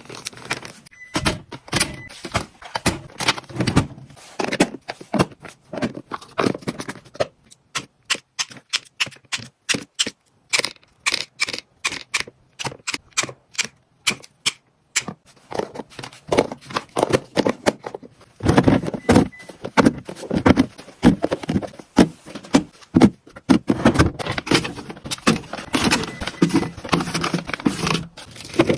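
Food packaging and storage containers being handled and set into a fridge: a busy run of clicks, taps, knocks and rustles, thinning to scattered clicks in the middle before getting busy again.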